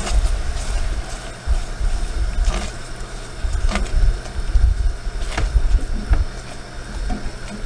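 A silicone spatula stirring and scraping a sticky sugar, butter and syrup mixture around a stainless steel saucepan, with a few sharp taps against the pan, over a loud uneven low rumble.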